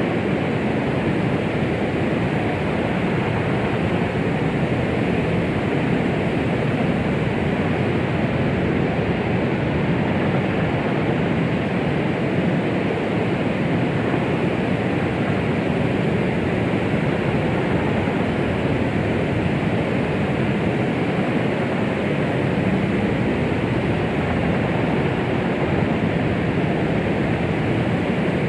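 Steady white noise of the 'womb sound' kind played to calm a baby: an even, deep rushing hiss with no heartbeat, rhythm or change.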